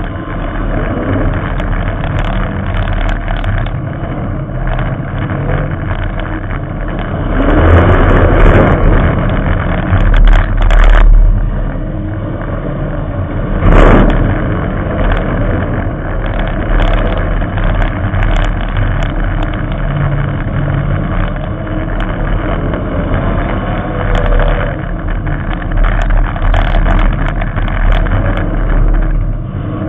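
Figure-8 race car's engine running hard, heard onboard, its revs rising and falling through the laps with a clear climb about seven to eight seconds in. There is a sharp knock about fourteen seconds in.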